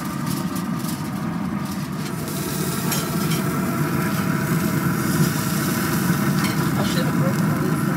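Hot dogs sizzling on a grill over a steady low rumble.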